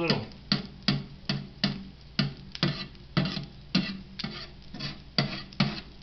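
Metal spatula tapping and poking on the griddle pan on top of a toaster oven around a frying egg, a quick run of sharp taps about two a second.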